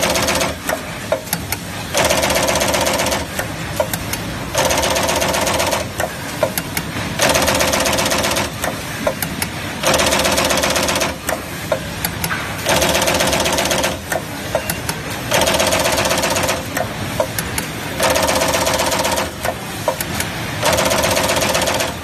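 Servo-driven ribbon cable crimping machine cycling: eight bursts of loud, rapid mechanical running, each about a second and a half long and coming every two to three seconds, with sharp clicks in the quieter gaps between them.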